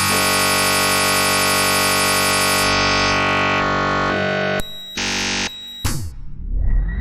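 Black MIDI music played through a MIDI synthesizer: a dense wall of many notes sounding at once, which cuts back about four seconds in. A short chord block comes at about five seconds, and near the end many notes sweep upward in pitch.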